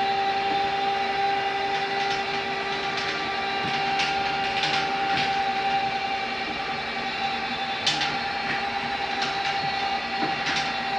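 Electric motor of a power bunk lift running with a steady whine as it raises the beds, with a few short clicks along the way, the sharpest about eight seconds in.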